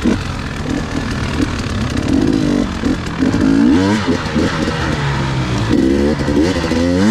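Two-stroke enduro dirt bike engine revving up and down as it is ridden, the pitch rising and falling over and over with the throttle.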